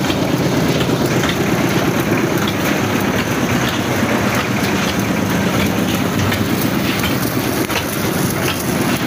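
Engine-driven concrete mixer machinery running steadily, an engine's loud steady running overlaid with a dense mechanical rattle.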